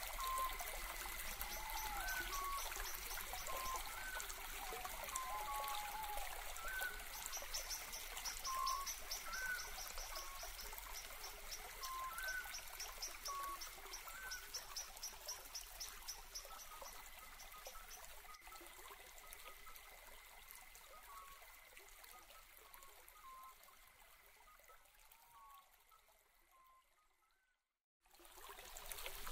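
A stream trickling steadily, with birds calling in short whistled notes every second or two and a fast high trill for several seconds in the middle. It fades away gradually to silence near the end, then starts again just before the end.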